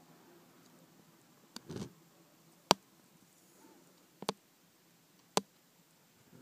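Handling noise: a jeweler's loupe being positioned over a plastic coin holder, giving about five sharp clicks and taps a second or so apart, with a brief rustle near the start.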